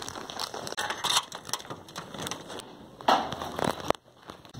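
Footsteps and rustling handling noise as someone walks carrying a phone, irregular crunching and knocking with a louder scrape about three seconds in, then an abrupt drop to quiet near the end.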